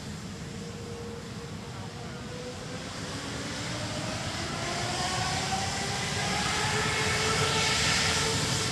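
Boeing 787-8's Rolls-Royce Trent 1000 jet engines spooling up, a whine of several tones rising slowly in pitch over a steady rush that grows steadily louder.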